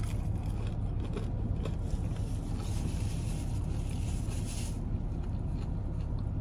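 Steady low hum of a car idling, heard from inside the cabin, with faint chewing noises and a brief rustle in the middle as a paper napkin is handled.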